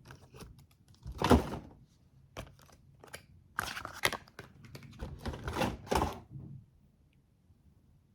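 Handling noise from products and packaging being moved and set down: a run of knocks, clicks and short rustles that stops about two-thirds of the way through.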